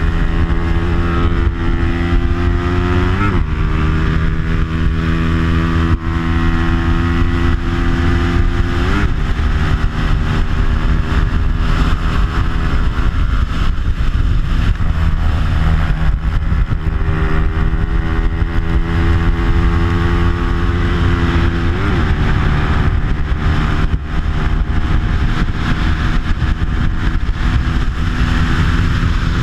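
Single-cylinder Bajaj Pulsar 200 four-stroke, a stock engine fitted with an aftermarket exhaust, running hard at racing speed as heard from on board, with wind rush over it. The engine note changes pitch abruptly three times, about 3, 9 and 22 seconds in.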